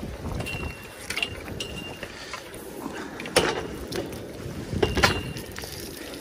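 A metal bicycle being hauled out on a fishing magnet, its frame and parts clanking and rattling, with short high squeaks and two sharp knocks about three and five seconds in.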